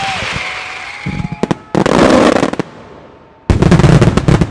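Mascleta fireworks: dense volleys of bangs and crackling. The fireworks come in two sudden loud barrages, each about a second long, one about two seconds in and a louder one about three and a half seconds in. A faint whistle fades out at the start.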